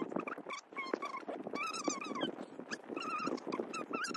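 A dog whining and whimpering in a rapid string of short, high, wavering cries.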